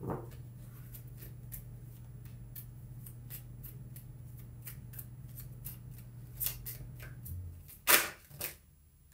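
Tarot cards being shuffled by hand: a run of light flicks and taps of the cards, with a few louder snaps near the end.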